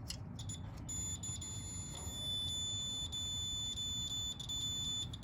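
A multimeter's continuity beeper sounding a steady high beep from about a second in until near the end, with brief dropouts, as the probes rest on two compressor winding terminals. The beep signals continuity between the windings, which is the reading a good winding should give.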